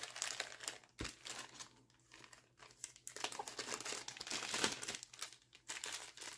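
Small zip-lock plastic bags of beads crinkling and rustling as they are handled, in irregular bursts that grow busier about halfway through, with one light knock about a second in.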